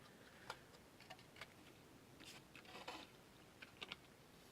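Faint, scattered clicks and light rustles as a processor's retail packaging is handled during unboxing.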